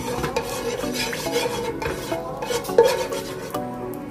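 A spatula scraping and stirring a little cooking oil around the bottom of a nonstick pot, with an irregular run of scrapes and taps and a sharper knock near three seconds in.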